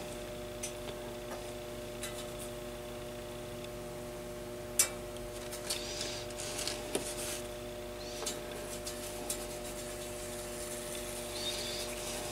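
Quiet workbench with a steady electrical hum. A soldering iron tip held against the pin of a vacuum-tube base gives a few light clicks and scrapes, with one sharper click about five seconds in.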